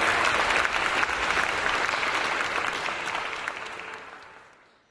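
A crowd clapping and applauding, fading out over the last second or so.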